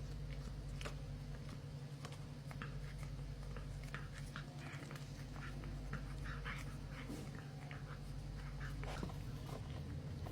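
A cat eating a salmon snack: a run of short, quick clicks and wet smacking chewing sounds, busiest in the middle of the stretch.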